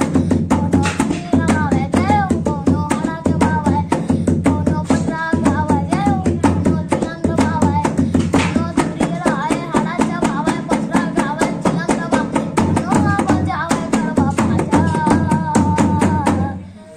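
A boy sings a Chhattisgarhi devotional bhajan while accompanying himself on a two-headed, rope-tuned dholak, beating quick, steady strokes. The singing and drumming stop shortly before the end.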